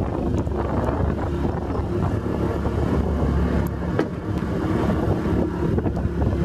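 Motor boat's engine running steadily while under way, with wind on the microphone.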